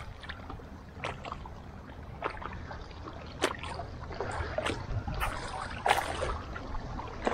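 Small waves lapping and splashing against rocks at the water's edge, with a few sharp ticks and taps over it.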